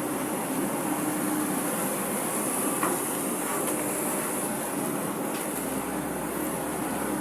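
Hydraulic excavator running steadily while digging, its diesel engine and hydraulics giving a constant hum and hiss, with a faint knock about three seconds in.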